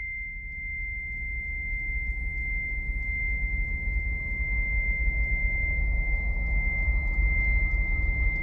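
Film sound design: a steady, high, pure ringing tone held throughout, over a low rumble that slowly swells louder.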